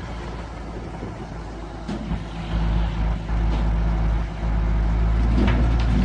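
Heavy diesel engine running with a steady low hum, getting louder about two and a half seconds in.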